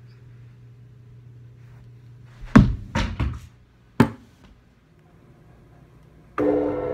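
Tennis-ball trick shot struck with a golf club at a drum kit: one very loud sharp hit about two and a half seconds in, a quick run of smaller knocks, then another sharp hit with a short ring at about four seconds. Music starts suddenly near the end.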